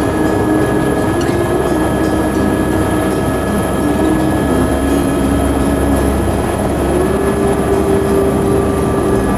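Helicopter in flight: steady, loud rotor and engine drone, with a droning tone that steps slightly higher about seven seconds in.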